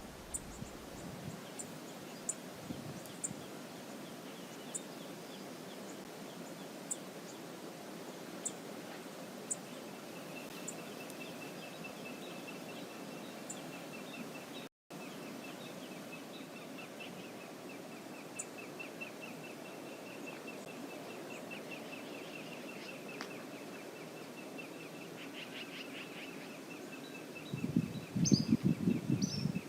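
Steady rush of the Brooks River, with sharp high bird chips every second or two over the first ten seconds and a thin, fast high trill from about a third of the way in. The sound drops out for an instant in the middle, and near the end a loud burst of rapid low pulses lasts about two seconds.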